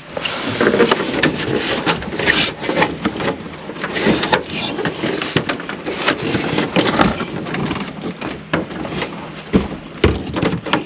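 Hard plastic dashboard trim and parts being pried and worked loose by hand: a string of irregular clicks, knocks and scraping rustles.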